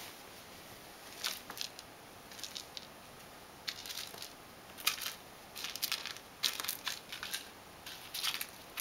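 A ragdoll cat pawing and scrabbling after a toy mouse on a wooden floor by a cardboard box: scattered short, scratchy rustles and scrapes, about a dozen at irregular intervals.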